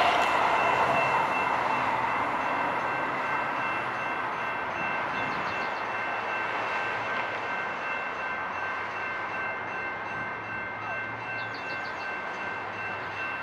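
General Signals Type 2 electronic crossing bell ringing steadily over the fading noise of a light rail train moving away; the bell stops near the end as the crossing activation ends.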